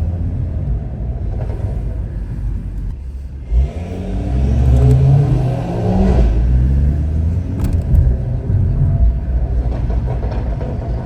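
Stage 2 tuned BMW 540i with a custom exhaust, engine running under way, then accelerating hard from about four seconds in with its pitch rising. A sudden thump comes just before the acceleration and a sharp crack near eight seconds.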